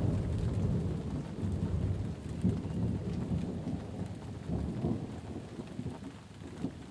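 A long roll of thunder over steady rain. The rumble is loudest in the first couple of seconds and slowly fades away.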